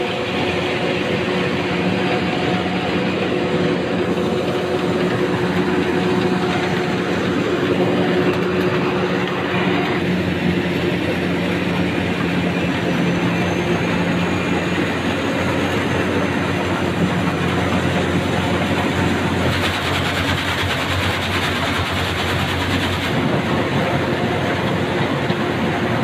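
Corn combine harvester running while harvesting maize: a steady engine drone under the dense mechanical clatter of the machine at work.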